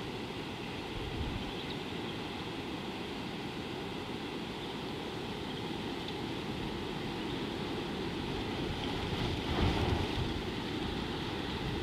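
Wind rumbling on an outdoor microphone, a steady low noise that swells briefly about ten seconds in.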